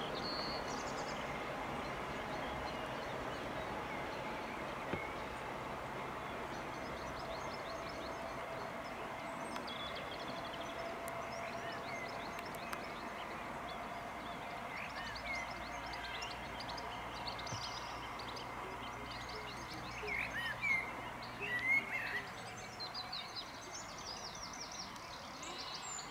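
HST power car's MTU 16V4000 diesel engine running as the train pulls away, a steady drone that slowly fades. Birds chirp over it in the last few seconds.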